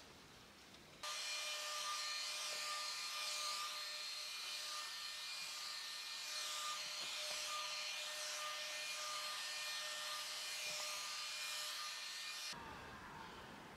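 Cordless electric spray gun running steadily, a high motor whine with spray hiss, as it sprays wood stain onto boards. It starts abruptly about a second in and cuts off near the end.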